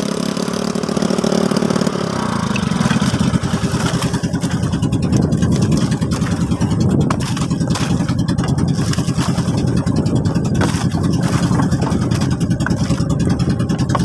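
Outrigger fishing boat's engine running with a rapid, even chugging, growing a little louder about three seconds in.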